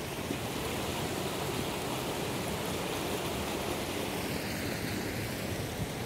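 Mountain stream running over rocks: a steady rushing of water.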